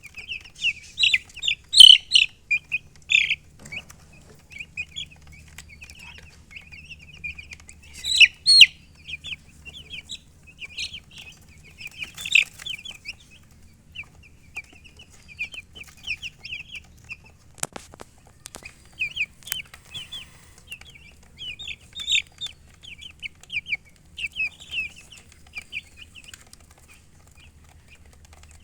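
Domestic baby chicks peeping: a dense run of short, high chirps, many in quick succession, with a few louder calls now and then. A couple of sharp clicks come about two-thirds of the way through, and the peeping thins out near the end.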